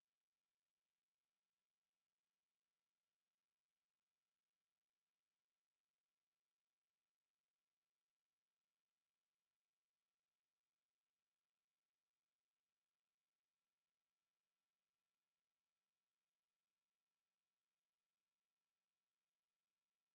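A steady high-pitched pure sine tone at 5184 Hz, a synthesized speaker test tone, held at a constant level without a break.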